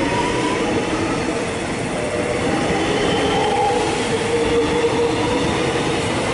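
A Melbourne X'Trapolis electric suburban train accelerating away from the platform. Its traction motors give a steady rising whine over the rumble of the wheels on the rails.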